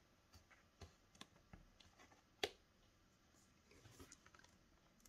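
Faint handling of white cardstock: a few small taps and clicks as the paper frame is positioned on the page, one sharper click about two and a half seconds in, and a soft rustle near the end.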